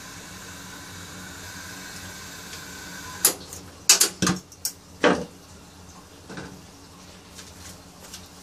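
A quick run of sharp knocks and clicks about three to five seconds in, with one softer knock around six seconds, over a steady background hum: the handling noise of the phone being set down and steadied for a fixed shot of the stove.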